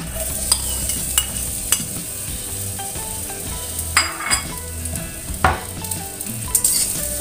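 Chopped onion, shallots and garlic sizzling in hot oil in a stainless-steel wok: a steady frying hiss with a few sharp clicks scattered through it.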